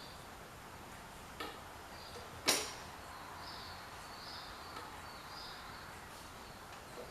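Two sharp knocks from handling tools or parts while working on a lawn tractor: a light one about a second and a half in, then a louder one with a short ring about a second later. Faint short high chirps, like birds, recur in the background.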